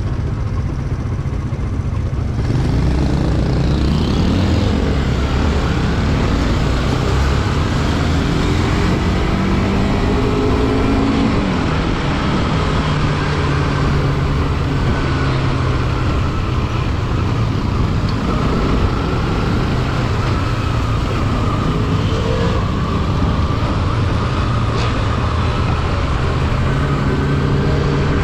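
Bajaj Pulsar NS200's single-cylinder engine under way, its pitch rising and falling again and again as the bike accelerates and shifts through the gears, over a steady rush of wind and road noise that grows louder about two seconds in.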